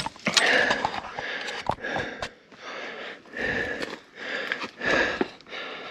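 A person's heavy, rhythmic breathing close to the microphone, with a few sharp clicks in between.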